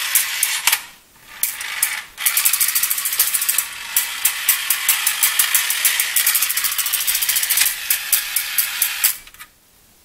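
Battery-operated 1960s Bandai tin Volkswagen Convertible toy car, its motor and gears running with a steady rattling whir full of fine clicks. It cuts out briefly twice near the start and stops about nine seconds in.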